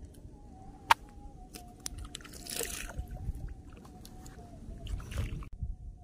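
Wind rumbling on the microphone while a small mullet is handled and unhooked over a wire keep net at the water's edge: a sharp click about a second in, then two brief bursts of splashing and sloshing, in the middle and near the end.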